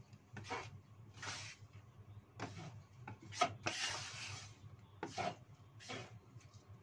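Wooden spatula scraping and tossing rice vermicelli around a nonstick wok: a run of irregular scrapes, the loudest about halfway through, over a low steady hum.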